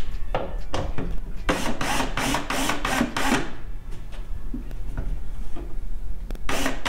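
DeWalt 12-volt cordless drill/driver running in short bursts with a rapid, even clicking, backing out the Phillips-head bolts that hold an over-the-range microwave to the cabinet above. One run starts about a second and a half in and lasts about two seconds; a second, shorter run comes near the end.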